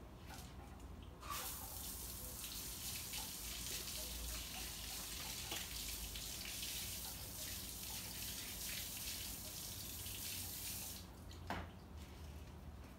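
Garden hose spraying water, a steady hiss that starts about a second in and stops about two seconds before the end. A short knock follows just after it stops.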